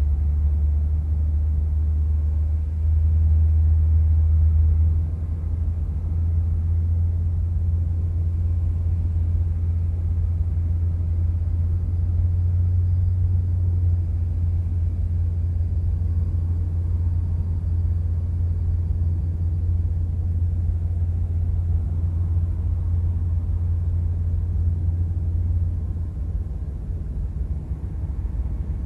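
Deep, steady electronic drone: a low rumbling hum with no beat or strikes. It swells briefly about three seconds in and drops a little near the end.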